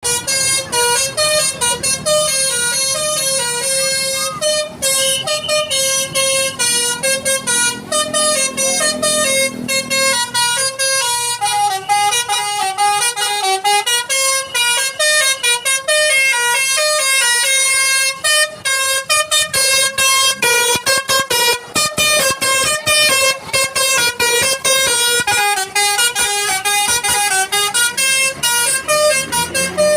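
Basuri telolet multi-tone bus horn playing a fast melody of stepped notes, the notes changing several times a second. A low engine rumble runs under it for roughly the first ten seconds.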